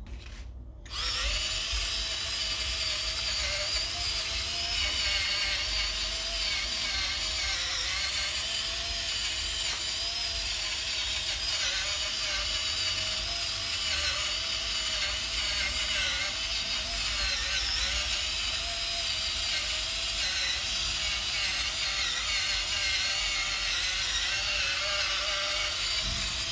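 Small electric motor running steadily, starting about a second in, its whine wavering slightly up and down over a constant hiss.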